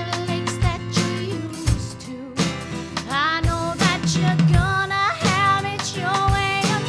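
A song playing: a woman singing a melody over guitar and a drum beat.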